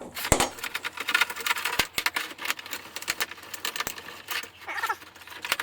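Steel parts clinking and knocking as they are handled: a run of quick, irregular metallic clicks and taps.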